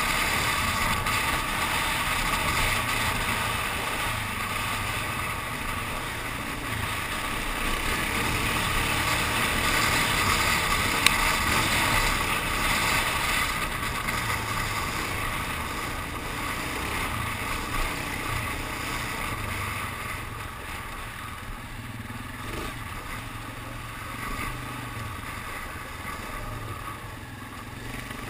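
ATV engine running steadily at trail-riding speed, with a rushing haze of wind and tyre noise over a low rumble. A single sharp click sounds about eleven seconds in, and the engine eases off somewhat in the last third.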